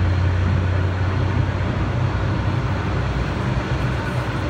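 Steady low rumble of jet airliner engines on the airport apron, heard muffled through the terminal window glass.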